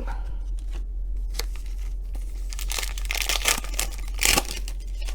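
A trading-card pack wrapper being torn open and crinkled by hand, with scattered crackles and two louder rustling bursts past the middle.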